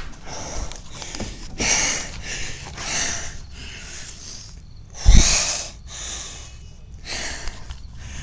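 A man's heavy panting close to the microphone, out of breath from jogging: quick noisy breaths about every two-thirds of a second. A loud bump on the microphone about five seconds in.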